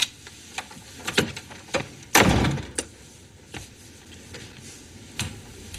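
A door closing with a thud about two seconds in, with a few light knocks and clicks before and after.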